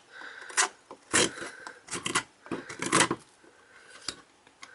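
Pocket knife blade cutting into a piece of wood in about half a dozen short scraping strokes, testing the edge's sharpness.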